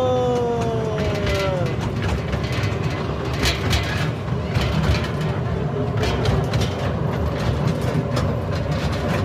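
Locomotive horn sounding and dying away, its pitch sagging as it stops about a second and a half in. Then the train runs with a steady low rumble and scattered knocks and clanks.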